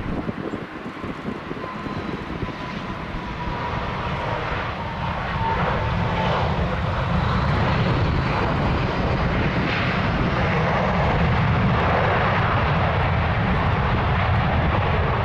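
Jet engines of an Airbus A320-214, CFM56-5B turbofans, growing louder over the first several seconds and then running steady and loud.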